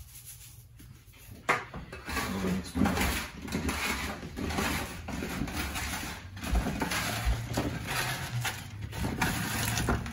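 Hands tossing oiled butternut squash cubes in a metal roasting tray: a sharp knock about a second and a half in, then continuous rustling and scraping with small knocks as the pieces slide and tumble against the tray.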